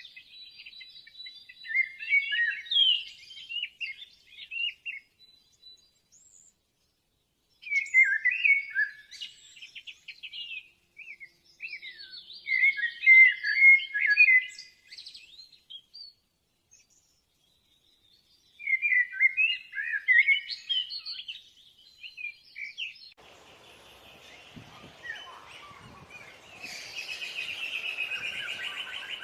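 A songbird singing in four bouts of quick, varied chirping phrases with short silent pauses between them. A steady background noise comes in for the last several seconds.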